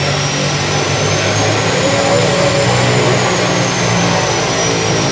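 Small aircraft's engine running on the runway: a steady low drone under a high whine that rises a little and then falls back.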